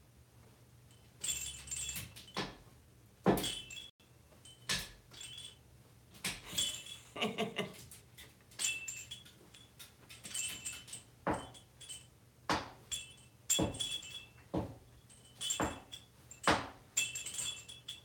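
Cowbell struck over and over in play with an African grey parrot. The strikes are short metallic clanks with a brief ring, coming roughly once a second at an uneven pace.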